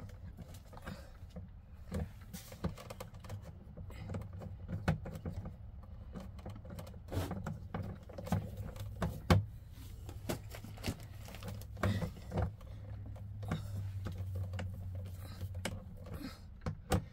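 Irregular small clicks and taps of a screwdriver working the terminal screws on a fuse panel's bus bar as the cable connections are tightened, over a steady low hum.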